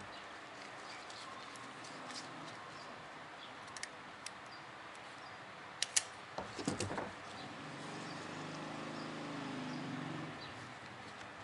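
Light metallic clicks and ticks of steel piston rings being handled and fitted onto a diesel piston, with a sharper double click about six seconds in followed by a short clatter. A faint low hum comes in a little later and fades about ten seconds in.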